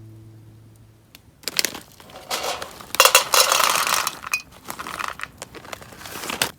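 Background music fading out, then a few seconds of irregular clinking, clattering and rustling, like camp gear or cookware being handled.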